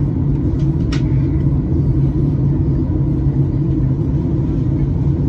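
Steady cabin rumble of a Boeing 737 MAX 8 in descent: the CFM LEAP-1B engines and the airflow over the fuselage, heard from a window seat inside the cabin, with a low steady hum. A faint click comes about a second in.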